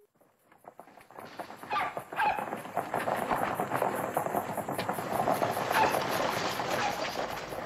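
A busy, noisy ambience that fades in over about a second, full of short clicks and knocks, with animal calls among it.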